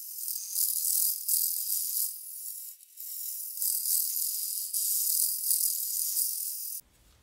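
Turning tool cutting across the face of a spinning walnut-and-maple blank on a wood lathe: a scraping hiss of shavings in long passes, easing off briefly near the middle and stopping abruptly near the end.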